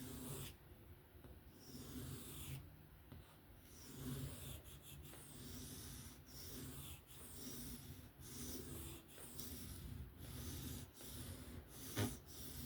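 Knife blade of 154CM steel stroked freehand across a whetstone: repeated scraping strokes, about one a second, with a sharper knock near the end.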